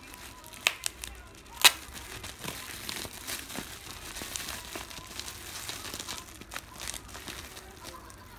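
Plastic bubble wrap crinkling and crackling as it is handled and pulled away from items in a cardboard box. A few sharp snaps come in the first two seconds, the loudest about a second and a half in.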